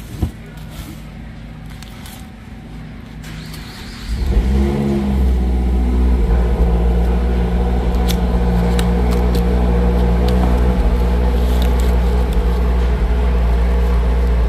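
Cardboard box handling with a few light knocks, then about four seconds in a motor starts up and runs steadily with a deep, loud hum that covers everything else.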